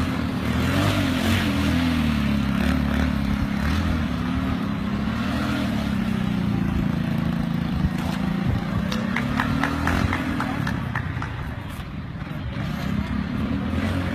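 Small motorbike engines running and revving, the engine note rising and falling, with a few short clicks about two-thirds of the way through.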